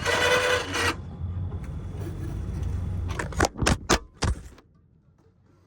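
A vehicle running with rattling and jangling. About three to four seconds in come several sharp clattering knocks, and then the sound drops to near silence.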